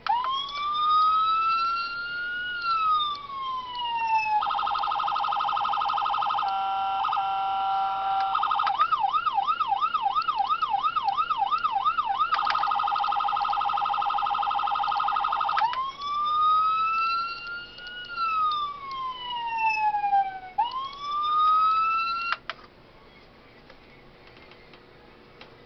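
Electronic police siren sounds from a toy police car's sound module: a wail rising and falling, then a steady horn tone, a fast yelp, the horn tone again, and the wail once more. It cuts off suddenly a few seconds before the end.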